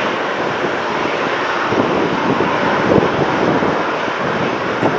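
Strong wind buffeting the microphone, mixed with the steady noise of jet airliners, an Airbus A321 and a Boeing 737, taxiing past.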